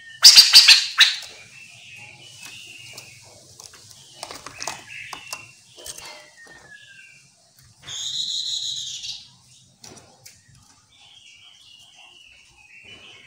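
Chestnut-capped laughingthrush calling: a loud harsh chattering burst just after the start, then scattered chirps and a short falling whistle, and one loud call about a second long past the middle.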